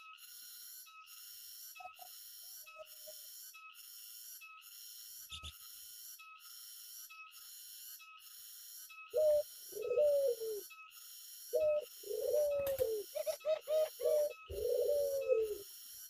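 Doves cooing from about halfway in: a run of low coos, each falling in pitch, coming closer together toward the end. Behind them, a steady high pulsing buzz at about two pulses a second.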